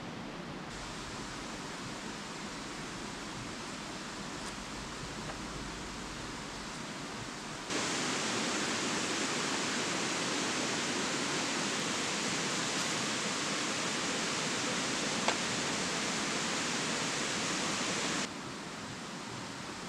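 Steady rushing of a shallow rocky stream, stepping up louder about a third of the way in and dropping back shortly before the end. A single sharp tap sounds once partway through.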